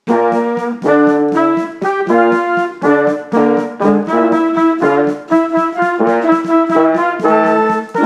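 A band with brass leading (trumpets and trombones) cuts in suddenly and plays a brisk run of short, separated chords, loud throughout.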